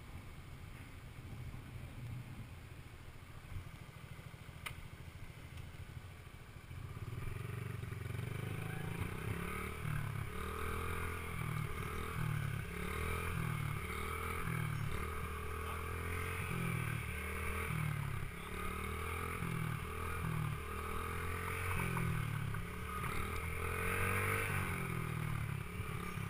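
Small dirt bike engine running quietly at first. From about seven seconds in it revs up and down over and over, roughly once a second, as the bike is ridden around.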